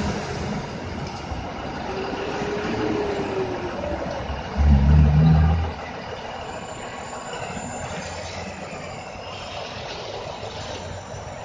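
A city transit bus pulling away from the curb, its engine surging loudly for about a second near the middle, over steady street traffic.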